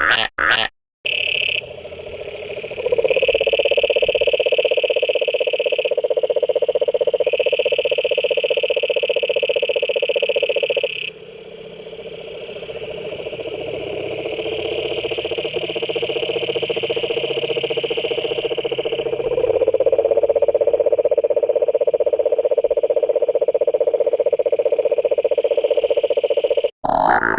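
Frogs calling in long unbroken trills: a lower, rapidly pulsed call and a higher one overlapping, each starting and stopping on its own, with abrupt breaks where the recording is cut.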